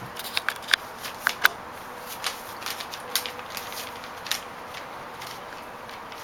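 Havanese puppies, five weeks old, scuffling at play: a run of irregular small clicks and taps, thinning out after about four and a half seconds.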